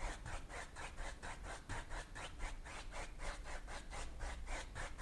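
A paintbrush scrubbed rapidly back and forth on a canvas, blending oil paint, in an even rhythm of about five scratchy strokes a second.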